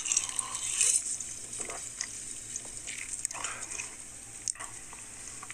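A man taking a drink of soda from a can, swallowing, then a few quiet mouth and lip sounds as he tastes it, with a brief click near the end.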